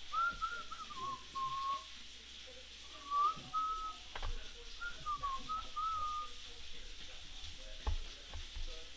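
A person whistling a tune in three short phrases, the pitch gliding up and down, with two light clicks, one about midway and one near the end.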